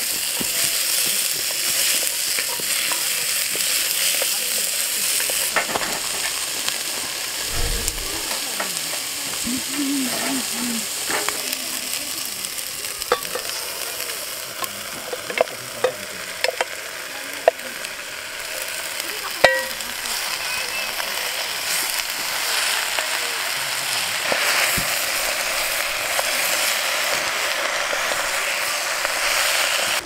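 Onions, garlic and vegetables frying and sizzling in a cast-iron Dutch oven over a campfire, stirred with a wooden spatula. About halfway through, a few sharp knocks and scrapes of the spatula and bowl against the pot as more vegetables are tipped in, and the sizzle rises again near the end.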